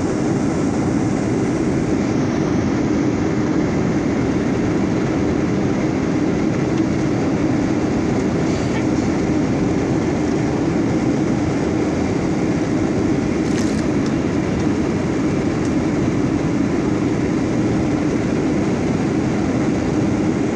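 Steady cabin noise of a Boeing 737-900 airliner in flight: the even rush of the engines and airflow around the fuselage, with a low hum that does not change.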